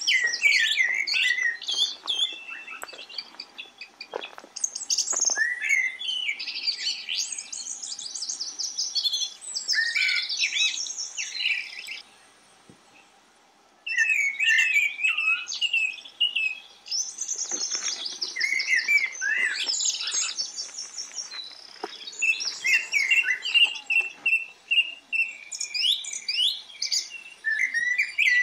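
Small songbirds chirping and singing, several quick overlapping calls and trills. The calls break off for about two seconds around the middle, then pick up again.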